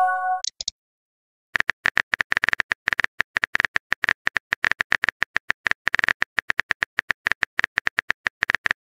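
Phone keyboard typing sound effect from a texting-story app: a fast, even run of sharp key clicks that starts about a second and a half in as a reply is typed out. Before that, a short chime from the newly arrived message fades out.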